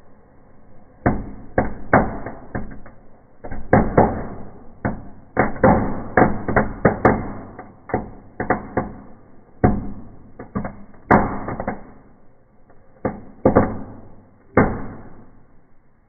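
Fireplace fireworks going off in a burning fire: irregular sharp bangs and crackles, often several in quick succession. They start about a second in and stop shortly before the end.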